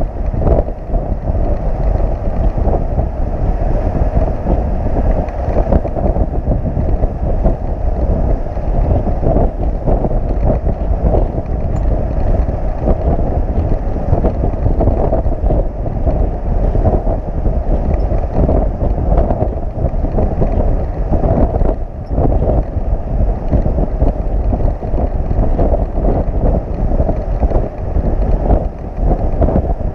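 Wind buffeting the microphone of a camera mounted on a motorcycle that is strapped onto a moving tow truck, over the truck's road noise: a loud, steady rushing rumble that flutters throughout.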